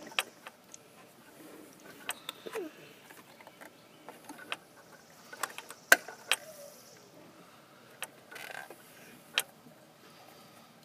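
Sharp plastic clicks and knocks from an accelerator pedal assembly being handled and its cover fitted back on, about half a dozen separate clicks with the loudest about six seconds in.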